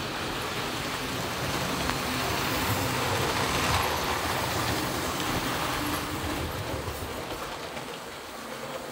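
Model train running round the layout: the motor and wheels on the rails make a steady rumble that grows as the train passes close, loudest about four seconds in, then fades as it runs away round the curve.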